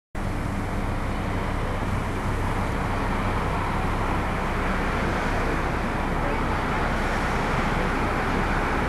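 Steady street traffic noise from cars passing on the road, with a low steady hum underneath for the first half.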